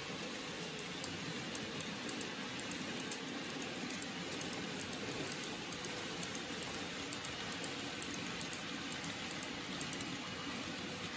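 N gauge model train running on the layout track: a steady whirr with a rapid, irregular patter of small clicks from the wheels on the rails.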